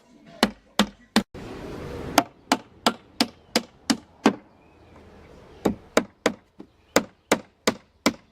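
Hammer driving nails into wooden pallet boards: runs of sharp, evenly spaced blows, about three a second, with two short pauses between runs.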